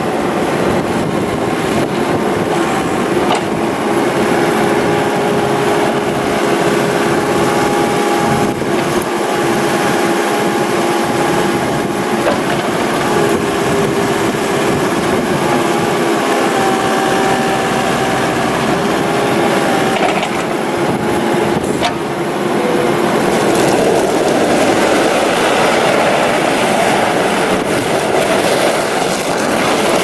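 Case SV300 skid steer's 3.2L four-cylinder turbo diesel running, with a steady whine that steps in pitch a few times and grows louder in the last few seconds.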